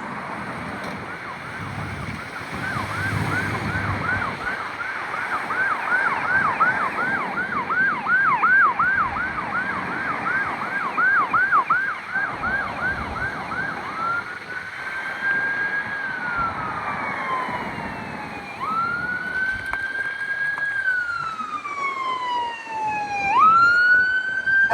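Fire truck siren on Ladder 439, a 2025 Pierce Enforcer, sounding a fast yelp of about two and a half sweeps a second. About fourteen seconds in it switches to a slow wail that rises quickly, holds, then falls gradually, and starts a new rise twice.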